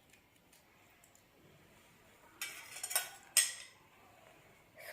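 A few short clicks and a light clink of hands handling food on a plate or with a utensil, bunched together about two and a half to three and a half seconds in, between quiet stretches.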